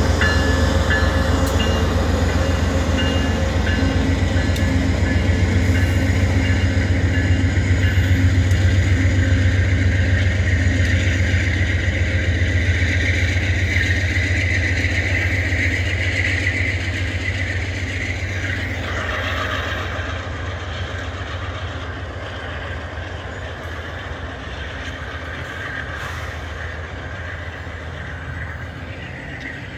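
VIA Rail passenger train, a GE P42 diesel locomotive hauling nine passenger cars, rolling past: a steady low rumble of the locomotive and wheels on rail that fades from about two-thirds of the way through as the train moves away.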